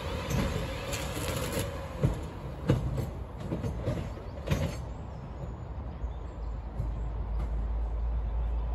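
South Western Railway Class 444 electric multiple unit moving slowly over pointwork, its wheels knocking sharply over the crossings and rail joints about two to five seconds in, over a steady hum from the train that falls away as it draws off.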